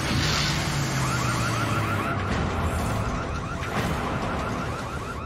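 Boat alarm going off in the flooding engine room: a fast, even run of short rising electronic chirps, about five a second, over a steady wash of machinery and rushing noise. A low hum underneath cuts out about two seconds in.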